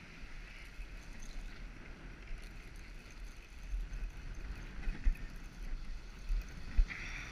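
Wind buffeting an action-camera microphone over surf washing against the rocks, with a few sharp bumps about five and seven seconds in.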